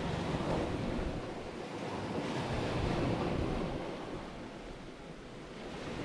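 Sea waves washing in, with wind buffeting the microphone; the surf swells about two seconds in and ebbs again near the end.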